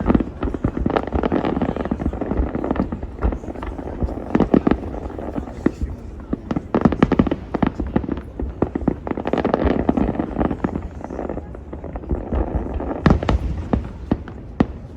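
Fireworks display going off: a continuous run of sharp bangs and crackling pops, coming in several dense flurries, with a cluster of loud bangs near the end.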